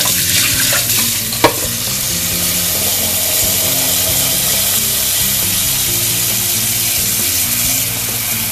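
Tap water running hard into a stainless steel bowl of eggs and splashing, as hands swirl the eggs to wash them. A sharp knock about one and a half seconds in.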